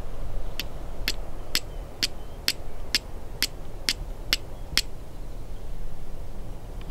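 Flint struck against a steel striker: about ten sharp clicks, roughly two a second, that stop near the middle. These are the strikes that throw sparks onto tinder to start a fire.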